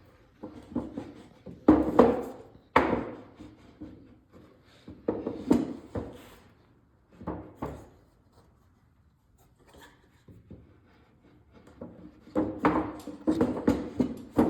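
Irregular knocks, clunks and rubbing of wooden pieces and the jig being handled, with quiet gaps between them. The saw is not running.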